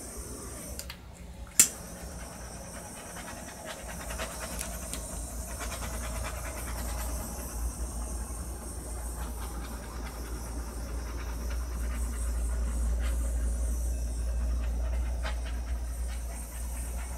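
Handheld butane torch hissing steadily as it is passed over a wet acrylic pour painting, with one sharp click about a second and a half in.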